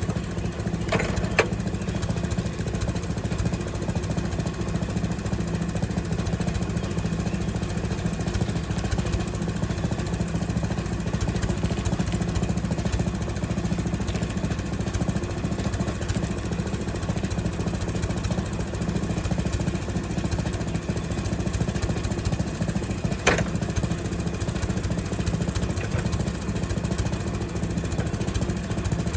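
Frontier OS23 portable band sawmill's small gas engine running steadily under load as the band blade cuts a pine log into slabs. Two brief sharp knocks come about a second in and again about three-quarters of the way through.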